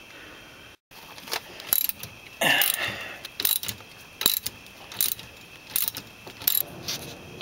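Hand ratchet wrench clicking in a string of sharp, irregularly spaced clicks as nuts on a front drum brake assembly are loosened, with one heavier clank of metal about two and a half seconds in.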